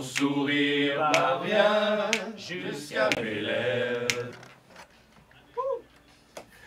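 A group of men singing together a cappella, their voices held in chords, with sharp clicks about once a second. The singing stops about four seconds in, leaving near quiet broken by one short rising-and-falling vocal note.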